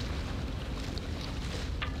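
Wind buffeting the microphone on the deck of a sailboat under sail, a steady low rumble, with a faint wash of water along the hull.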